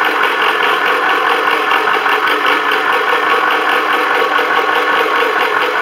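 Vevor 4500 PSI PCP airgun compressor running steadily with a fast, even pumping pulse as it fills a PCP air rifle's tank toward 3,000 PSI. The sound is sped up.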